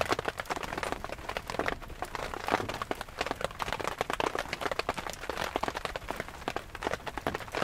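Rain falling on a surface: a dense, irregular run of sharp drop taps.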